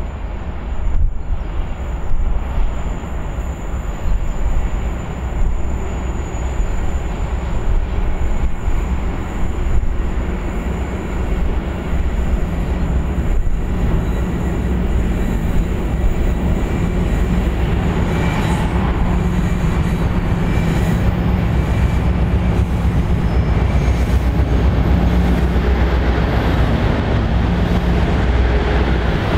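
Two Colas Rail Class 56 diesel locomotives, with Ruston-Paxman V16 engines, working together at the head of a loaded log train as they approach and pass. Their deep engine drone grows louder over the first half and then holds steady as they run close by.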